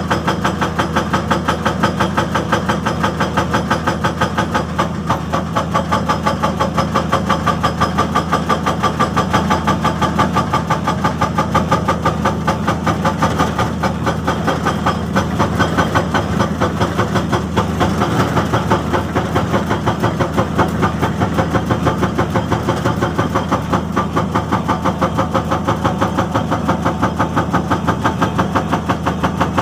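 Excavator's hydraulic breaker hammer working, a fast, even train of blows several times a second over the steady run of the diesel engine.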